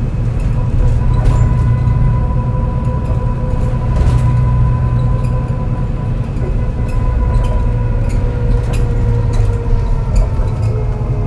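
MAN NL202 CNG bus engine labouring under load with a bad misfire, heard as a heavy low rumble broken by irregular knocks. Over it the ZF Ecomat five-speed automatic gearbox gives a steady whine that starts to fall in pitch near the end.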